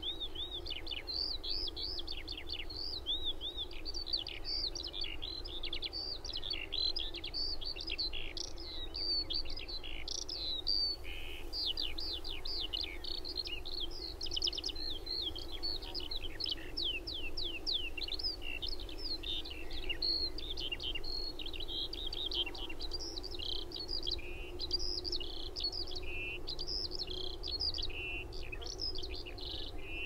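Eurasian skylarks singing: a long, unbroken stream of fast, high warbling and trilling song, over a steady low rumble of distant traffic.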